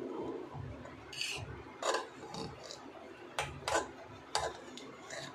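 Steel ladle stirring cooked rice in an aluminium pressure cooker: a soft rasping rub with several sharp scrapes and clinks as the ladle hits the pot, the clearest about two seconds in and three more around the middle.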